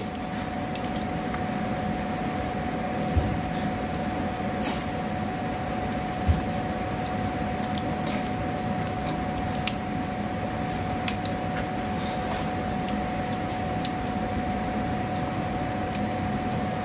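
Shop fan running steadily with a constant hum, with a few light clicks and taps from hands working a wiring connector under a truck.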